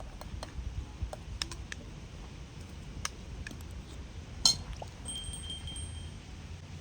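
Scattered light clicks and clinks at irregular intervals, one sharper click about four and a half seconds in, over a low steady rumble; a faint thin tone sounds briefly near the end.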